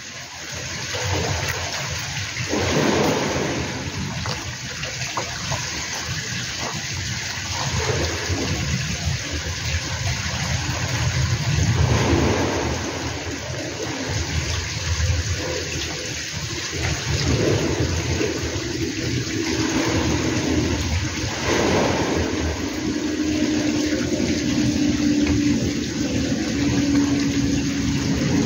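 Wind buffeting the microphone in uneven gusts, a rushing, rumbling noise that swells and eases. A faint steady hum comes and goes in the last third.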